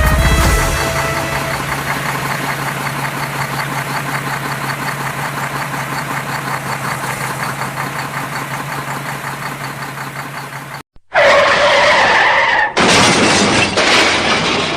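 Cartoon motor-vehicle engine sound effect: a steady low hum with a fast, even pulse that slowly fades. It cuts out briefly about eleven seconds in and gives way to louder sound effects: first a wavering tone, then a noisy rush.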